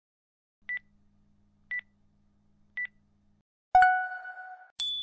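Countdown timer sound effect: three short, high beeps about a second apart, then a louder ringing chime marking zero. About a second later comes a higher, ringing bell ding.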